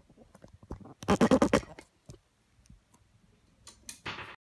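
Handling noise from a phone camera being moved and turned on its stand: a loud rattling clatter about a second in, scattered clicks, and a short scrape near the end.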